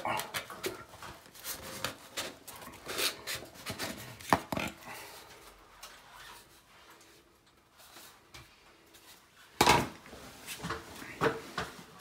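Boiler flue pipe being pulled out through its wall sleeve: irregular scraping and knocking, with one sharp, loud knock near the end.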